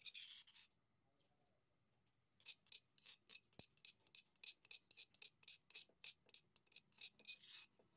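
Faint clicks and scrapes of a metal spoon against a granite mortar as pounded chili dip is scooped out into a bowl: a short run, a pause of about two seconds, then a quick irregular run of taps.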